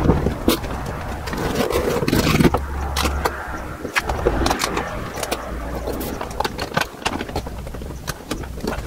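Brown masking paper crinkling and rustling, with scattered sharp clicks and scrapes, as it is smoothed and taped down over a car body panel. A low steady hum runs underneath.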